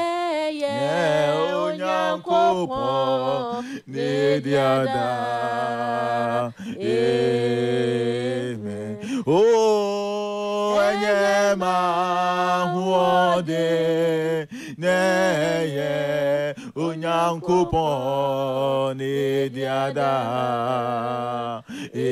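A man's and a woman's voices chanting in fervent, unaccompanied prayer, the pitch rising and falling without a break.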